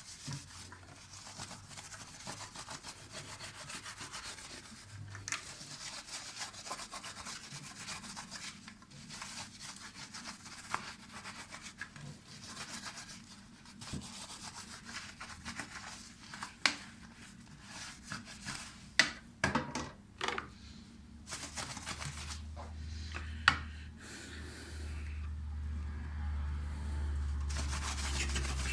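Dishwasher spray arm being scrubbed by hand with dish soap: steady scratchy rubbing, with a few sharp knocks in the second half. A low hum joins near the end.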